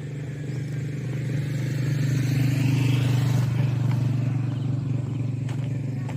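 A motor vehicle's engine passing along the road: a steady low hum that grows louder toward the middle, with a brief hiss at its loudest, then eases slightly.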